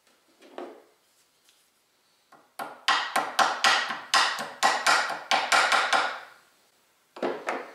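Small hammer tapping the front sight key of a 1903A3 Springfield into its sight base: about fifteen quick, sharp taps a few per second, starting a couple of seconds in, then one more tap near the end.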